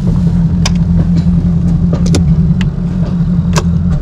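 Bass boat's outboard motor running steadily at speed, a loud, even low drone, with scattered sharp knocks over it.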